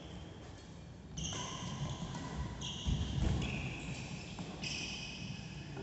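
Badminton doubles rally on an indoor court: several sudden high-pitched squeaks from shoes on the court mat, with racket hits and the thud of footsteps, loudest about three seconds in.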